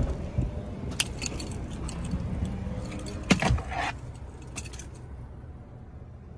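A clunk right at the start as the rear door of an SUV is opened, then scattered small clicks and rattles from handling inside the cabin, with a louder knock and brief rattle a little over three seconds in.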